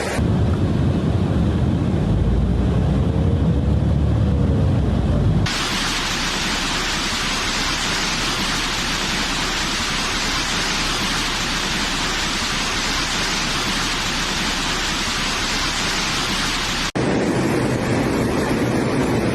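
Storm and flood field audio in three clips, cut abruptly about five seconds in and again near the end. It opens with a heavy low rumble, then a long steady hiss of heavy rain and rushing water, then a rougher mix of water noise.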